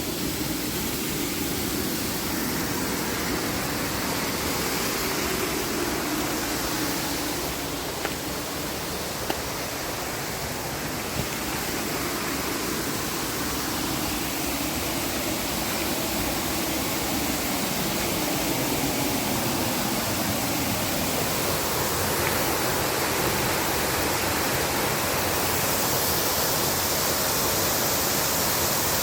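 Waterfall pouring heavily, a steady full rushing of water, swollen after rain. A few faint clicks sound about a third of the way in.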